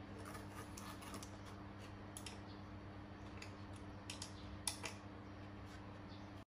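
Faint, irregular small metal clicks and taps from a T-handle socket wrench and bolts as a surf skateboard's truck-mounting bolts are tightened so their heads sink into the deck, over a steady low hum. The loudest click comes a little before five seconds in, and the sound cuts off abruptly near the end.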